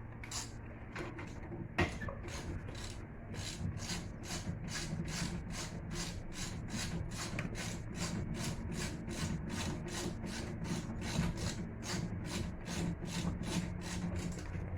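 Hand tool at work with steady, rhythmic back-and-forth scraping strokes, about three a second, over a low steady hum.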